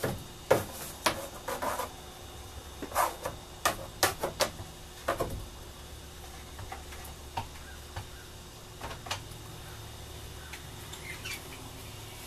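A long rod working inside a PVC pipe float packed with spray foam: a quick run of sharp knocks and scrapes against the pipe in the first five seconds or so, then only a few scattered clicks, over a steady low hum.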